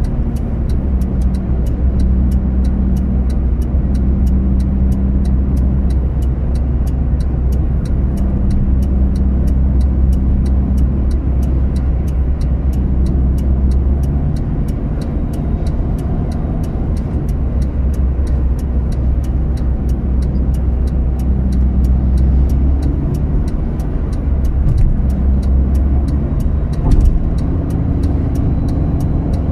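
Steady low road and engine drone heard inside a moving vehicle's cabin at highway speed, easing slightly about halfway through.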